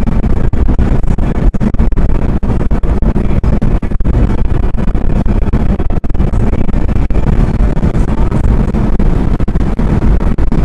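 Car cruising at highway speed, heard from inside the cabin: a loud, rough rumble of road and wind noise, heaviest in the low end and choppy with many brief dropouts, like an overloaded microphone.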